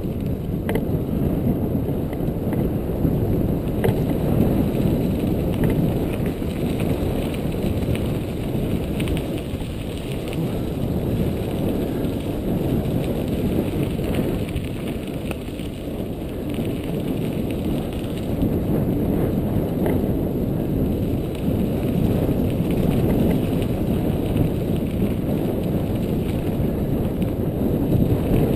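Mountain bike riding along a dirt track: a steady rumble of tyres rolling on packed dirt and the bike rattling, with a few faint clicks.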